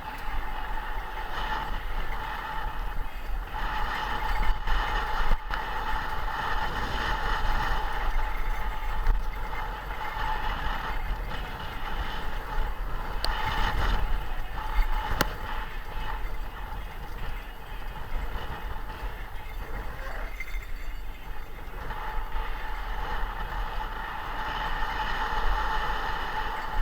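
A vehicle on the move: steady road noise with a constant whine running through it.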